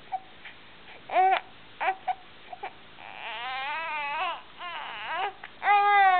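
A baby's high-pitched vocalizing: a few short squeaks, then longer wavering, crying-like calls, the loudest one near the end.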